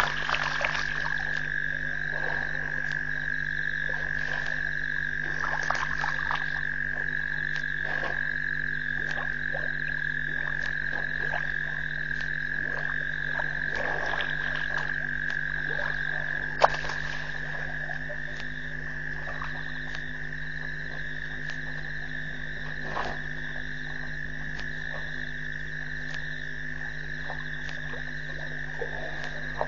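Frogs calling in a steady, continuous chorus at a waterhole at night, over a low steady hum, with scattered faint clicks. There is one sharp click about two-thirds of the way through.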